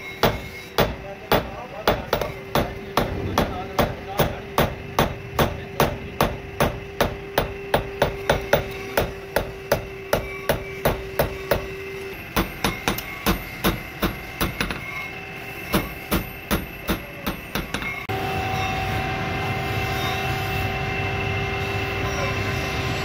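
Hand hammer striking a steel sickle blade on a steel anvil block, about two to three even ringing strikes a second as the blade is forged back into shape. About three-quarters of the way through the strikes stop and a steady motor whine takes over, from a bench grinding wheel starting to run.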